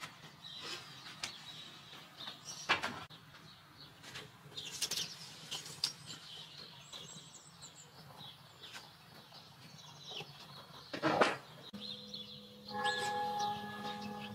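Scattered knocks and scrapes of plastic plant pots being moved about on a balcony floor, the loudest knock about eleven seconds in. Soon after, a bell starts ringing, its steady tones carrying on.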